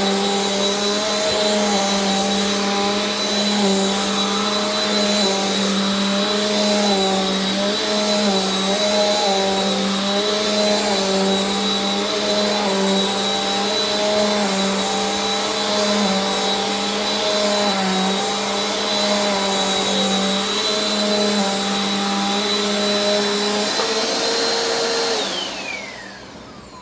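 Bissell PowerForce Compact upright vacuum cleaner running over a rug, with a steady high-pitched whistle over its motor hum. Near the end it is switched off, and the whistle falls away as the motor winds down.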